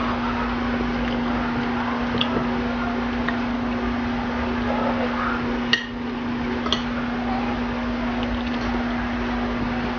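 Eating sounds from a bowl of soup and rice over a steady background hum, with two sharp clinks of a utensil on dishware a little past the middle.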